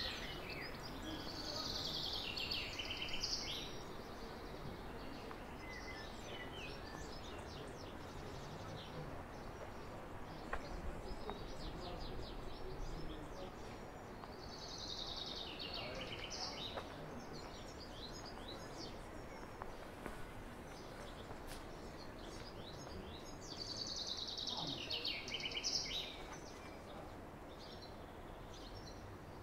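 A songbird singing a short descending song of about two seconds, three times, roughly ten seconds apart, over steady outdoor background noise.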